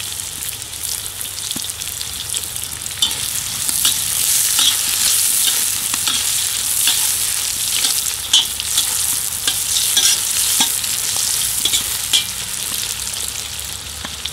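Onions, carrots and peppers sizzling as they are stir-fried in a hot wok, a metal skimmer ladle scraping and clicking against the pan as it turns them. The sizzle grows louder about three seconds in and eases off near the end.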